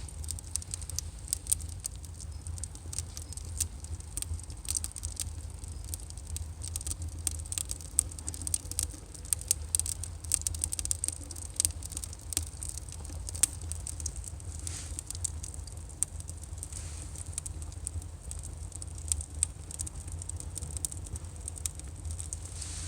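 Burning firewood crackling: irregular sharp pops and snaps, several a second, over a low steady rumble.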